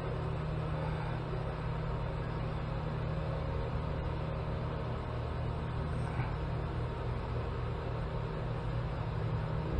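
Steady low mechanical hum with a constant background hiss.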